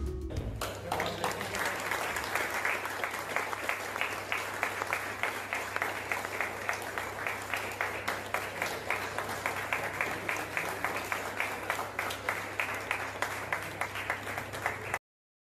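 A small group of people clapping steadily, with a low steady hum underneath. The applause cuts off abruptly near the end.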